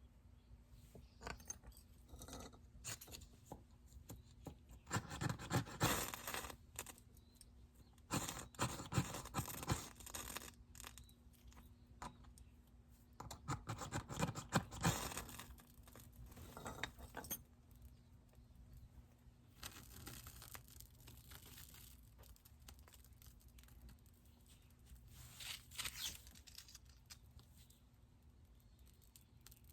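Intermittent bursts of rustling, scraping and tearing, each a second or two long and several seconds apart, as things are handled.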